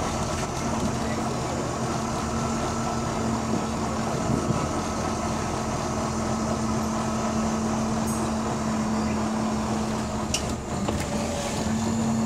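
Diesel engine of a Wright-bodied Volvo double-decker bus idling steadily, heard from inside the passenger saloon, with a couple of short clicks near the end.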